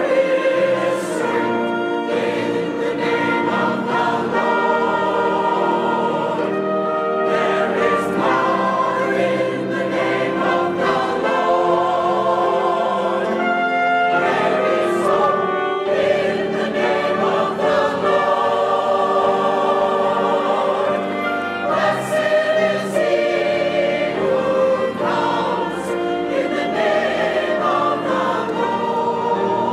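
Mixed church choir singing a hymn with piano and a small ensemble, including trumpets, trombone and French horn, playing along.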